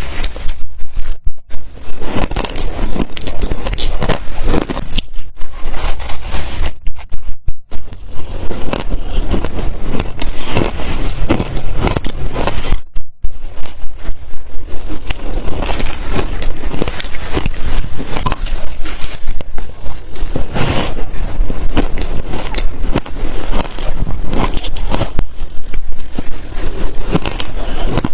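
Close-miked crunching of shaved ice being bitten and chewed: dense, crackly crunches one after another, broken by a few brief pauses.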